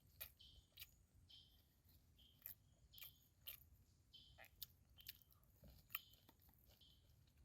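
Faint, close-up chewing of spicy fried chicken organs, with irregular crisp crunches and mouth clicks roughly every half second.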